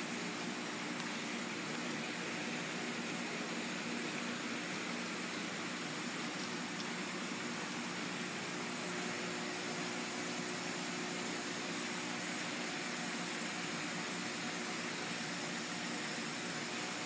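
Steady hiss with a low, even hum from a large aquarium's filtration running.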